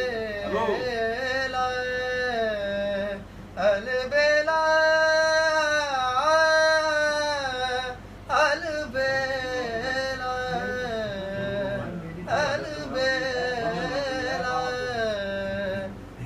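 A young man singing solo in Indian classical style, drawing out long held and gliding vowel notes in phrases broken by short breaths.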